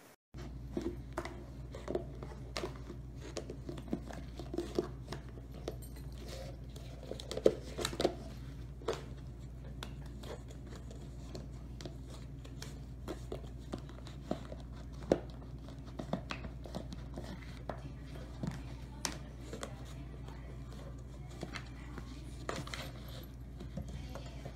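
Great Pyrenees puppy chewing a plastic bottle: irregular crackles and sharp clicks of the plastic under its teeth, over a steady low hum.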